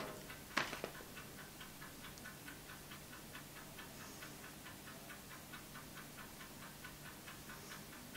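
Clockwork mechanism of a Vktech wind-up 360-degree time-lapse rotating head ticking quietly and evenly, about four to five ticks a second, as it slowly turns a GoPro; the ticking works like an egg timer. A single sharp click sounds just after the start.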